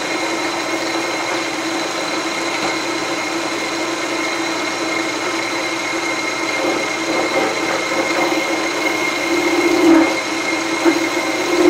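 Milling machine running with a 3/8-inch end mill in the spindle: a steady hum with a thin high whine above it, swelling briefly about ten seconds in and again at the end.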